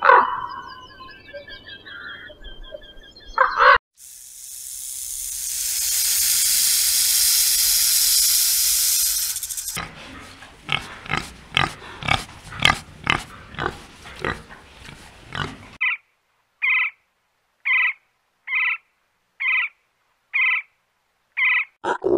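A series of animal sounds. First a rook calls harshly for a few seconds. A snake then hisses for about six seconds, the hiss swelling and fading. A boar follows with quick grunts, about three a second, and last comes a short call repeated seven times, about a second apart.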